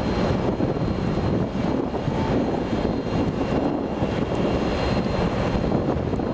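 Large car ferry's diesel engines running under load with a steady low drone as the ship manoeuvres in to berth.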